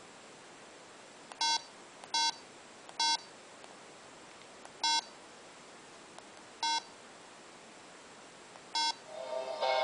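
Six short, identical electronic beeps at uneven gaps from a cube-shaped mini MP3 player speaker as its menu buttons are pressed. Near the end a song starts playing from its small speaker and grows louder.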